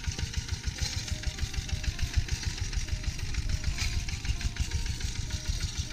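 Two-wheel walking tractor's engine chugging steadily as it pulls an implement through a rice paddy.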